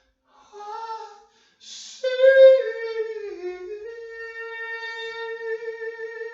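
A person's voice singing: a short phrase, a breath, then from about two seconds in a long held note that dips and then settles at a steady pitch.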